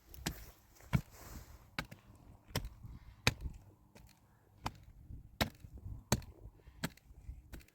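Chopping: a steady series of sharp strikes, about nine in all, roughly one every three-quarters of a second.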